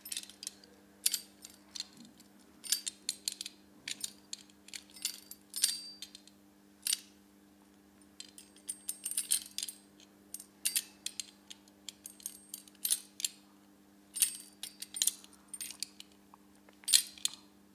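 Irregular metallic clinks, coming in bunches with short pauses, as a hand tool knocks against the steel parts of a monitor arm while a screw is tightened by hand. A low steady hum runs underneath.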